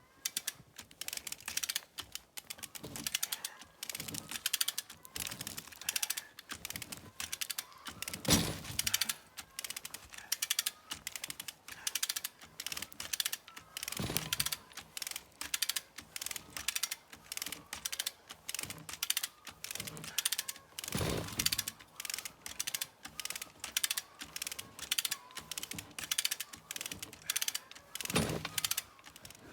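A 1.5 ton hand winch ratcheting, its pawl clicking rapidly stroke after stroke as it drags a heavy log under load. A heavier clunk comes about every seven seconds, four times in all.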